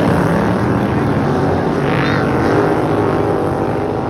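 Racing lawn mower engines running hard, with a brief rise and fall in pitch about halfway through.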